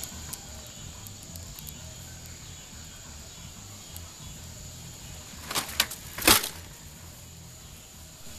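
Campfire crackling faintly, then about five and a half seconds in two quick sharp knocks and, a moment later, a louder thump as someone jumps over the fire and lands.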